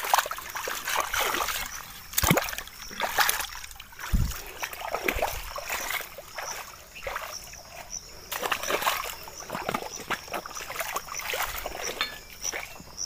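Bare feet splashing and sloshing in shallow running water, a person rinsing off mud, in irregular splashes about once a second.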